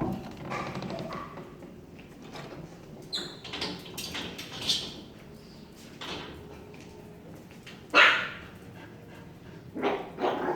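A dog barking at the person filming, a string of separate barks with the loudest about eight seconds in and two more close together near the end.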